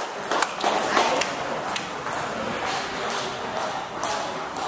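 Table tennis ball clicking sharply off bats and table in a quick rally during the first second or so. After that, the hall's steady background of distant ping-pong hits.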